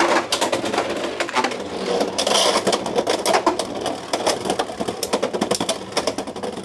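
Beyblade X spinning tops battling in a plastic stadium: a rapid, dense clatter of the tops striking each other and the stadium walls, easing off near the end.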